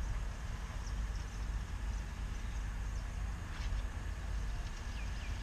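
Wind buffeting the microphone, a constant low rumble that rises and falls, with a few faint bird chirps near the end.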